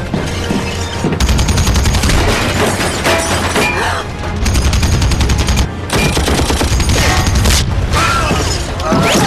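M2 Browning .50-calibre heavy machine gun firing in three long bursts of rapid shots, mixed over film score music.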